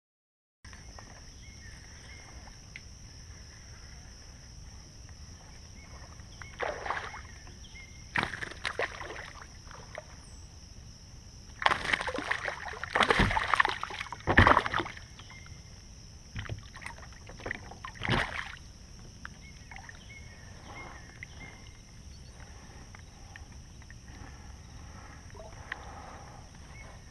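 A hooked bass splashing and thrashing at the side of a fishing kayak as it is pulled from the water, with a cluster of loud splashes about halfway through and a few shorter ones before and after. Behind it runs a steady high insect drone.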